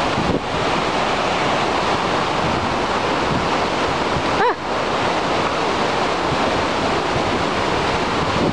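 Steady rushing of a large waterfall, mixed with wind noise on the microphone.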